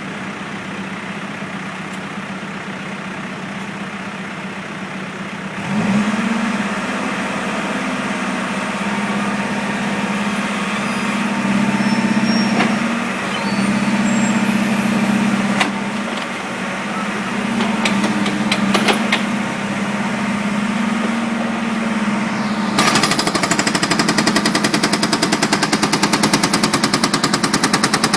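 Excavator-mounted hydraulic concrete breaker. The diesel engine comes up to a strong, steady running note about six seconds in, then the breaker starts hammering in a fast, even stream of blows near the end.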